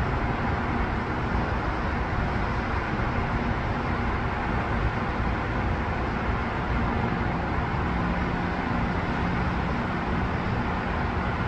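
Road traffic on a busy multi-lane highway, a steady continuous wash of tyre and engine noise with no single vehicle standing out.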